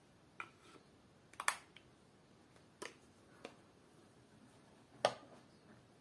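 About half a dozen sharp clicks and light taps from handling a wooden knife sheath: its pin being fitted and the sheathed chef's knife being laid into its presentation case. The loudest clicks come about one and a half seconds in and again about five seconds in.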